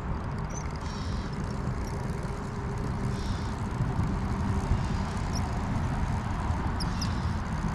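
Steady low rumbling noise with no clear pitch, and a few faint high chirps near the end.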